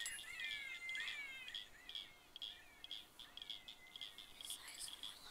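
Night chorus: a short high chirp repeating evenly about three to four times a second, with a flurry of gliding bird-like chirps over the first two seconds and a few scratchy clicks near the end.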